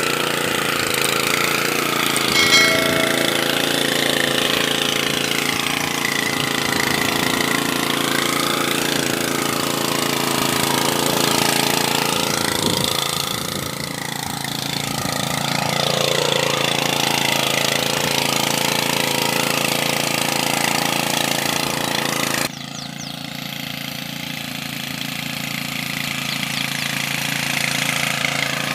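Kisankraft KK IC 100P power weeder's engine running steadily as the machine works between cotton rows. The level drops abruptly about three-quarters of the way through, and the engine carries on quieter.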